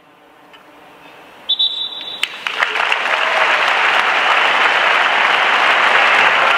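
A football stadium crowd bursting into cheering and applause that swells up about two and a half seconds in and holds loud as the teams stand lined up on the pitch. Just before it, a short shrill high tone sounds for about half a second.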